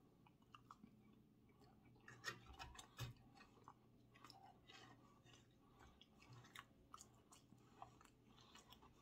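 Faint, close-miked chewing of a mouthful of steak: soft wet mouth clicks scattered throughout, a little louder about two and three seconds in.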